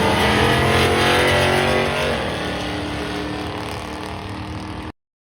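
Power tool motor running while cutting sheet-metal floor pan, its pitch shifting as the load changes, then stopping abruptly near the end.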